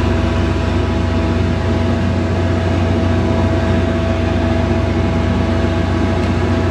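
A steady, loud, low mechanical hum with a constant higher whine, like an engine or motor running at a steady idle.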